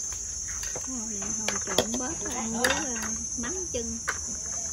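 Steady high-pitched drone of cicadas calling. From about a second in, a person's voice talks indistinctly in the background, and there are a few light clicks.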